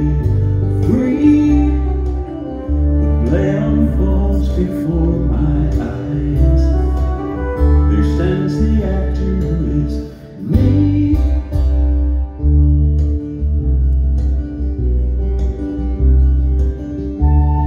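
Live acoustic band playing: strummed acoustic guitar and flute with a strong low bass and a male voice singing, heard from the audience in a concert hall.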